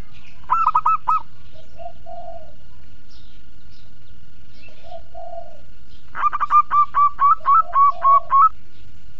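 Zebra dove (perkutut) singing: a short burst of four quick staccato coos about half a second in, then a longer run of about ten rapid coos starting about six seconds in. Two softer, lower coos come in between.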